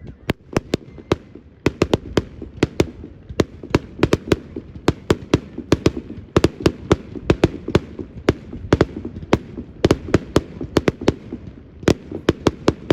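Fireworks display going off: a rapid, irregular run of sharp bangs and cracks, several a second, over a continuous low rumble of bursts.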